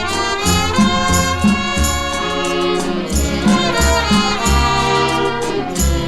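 Instrumental break of a Thai orchestral pop ballad: a sustained melody over a steady bass beat.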